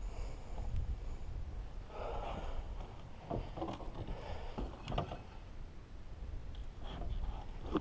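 Handling noise aboard a small fishing skiff: a few scattered knocks and clicks on the deck and fittings over a steady low rumble, with no engine running.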